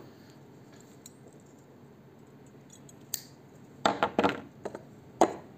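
Scissors snipping nylon fishing line: a cluster of sharp clicks about four seconds in and one more near the end, after a few quiet seconds.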